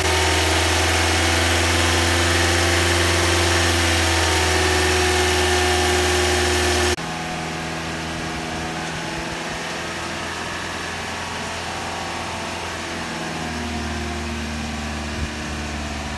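2009 Toyota Corolla's 1.8-litre four-cylinder (2ZR-FE) engine running steadily at a raised idle of about 2000 rpm while SeaFoam spray is fed into its intake. About seven seconds in, the sound drops suddenly to a quieter steady run heard from the tailpipe, which is pouring out smoke as the cleaner burns off.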